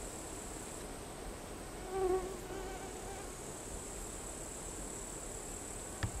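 Summer forest ambience: a steady high-pitched chirring of insects, with a flying insect buzzing close past about two seconds in, wavering in pitch for about a second. A brief sharp knock near the end.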